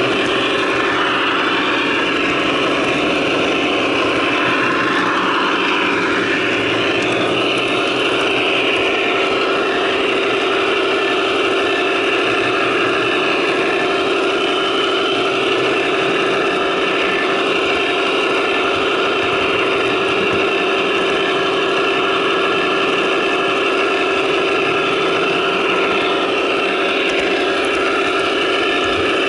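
Sampled diesel locomotive sound from a Broadway Limited Imports HO scale GE AC6000CW model's onboard Paragon 2 sound system, imitating the sixteen-cylinder turbo diesel. It runs steadily at an even level with a constant hum.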